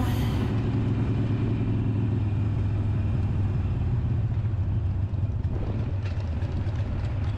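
Harley-Davidson V-twin motorcycle engine running steadily on the move, heard from the riding bike, with road and wind noise over it.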